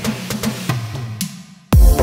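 Background music: a light beat fades almost away, then a loud electronic dance beat with heavy bass drum hits starts suddenly near the end.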